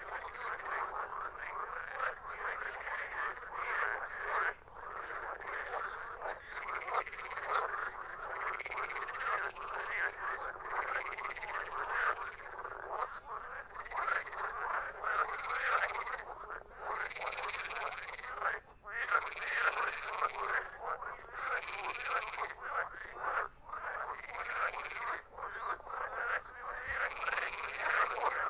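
A chorus of frogs croaking, many calls overlapping in a dense, continuous din with individual croaks repeating roughly every second.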